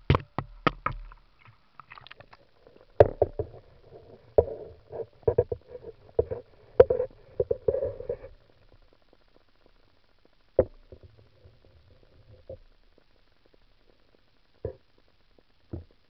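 Handling knocks and bumps of a camera going into a stream and being moved about underwater: a quick cluster of sharp clatters at the start, a dense run of knocks from about three to eight seconds, then a few single knocks spaced out.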